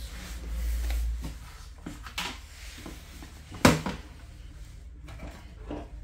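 Hard plastic humidifier parts being handled: a low rumble in the first second, a few light clicks, and one sharp knock about three and a half seconds in.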